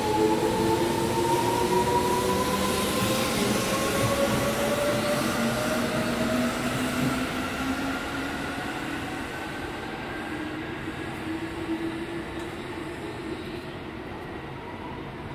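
Yellow Seibu Ikebukuro Line commuter electric train pulling out of the station. Its motors whine in several tones that rise steadily in pitch as it gathers speed, over the rumble of the cars, and the sound slowly fades as it draws away.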